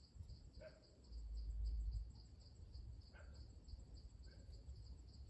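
Insects chirping in a steady, pulsing high-pitched chorus, with a few short bird chirps over it and a low rumble that swells about a second in.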